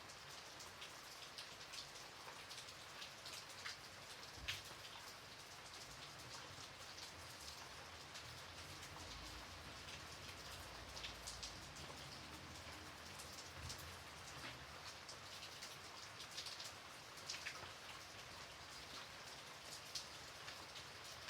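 Gentle rain falling: a soft, steady hiss with many separate drops tapping close by, and a faint low rumble near the middle.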